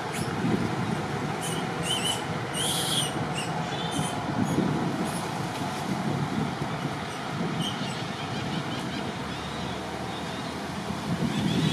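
Steady outdoor background noise with a slowly rising and falling rumble, and a few short high squeaks about three seconds in and again near the end.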